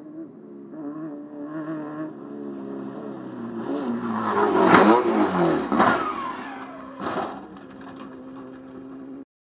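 Off-road race car engine revving and rising in pitch as it gets louder, with sharp impact noises about five, six and seven seconds in as the car crashes. After them an engine drones steadily until the sound cuts off suddenly near the end.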